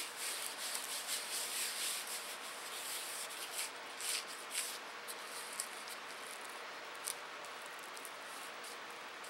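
Gloved hand rubbing a coarse dry spice rub into a raw steak on a plastic cutting sheet: quick scratchy, gritty swishes, busy for about the first half, then thinning to a few single scrapes.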